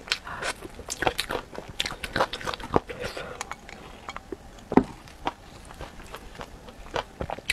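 Close-miked eating of spicy chicken feet: sharp, wet clicks and crunches of biting and chewing, dense in the first three seconds and sparser after, with one loud click a little before five seconds in.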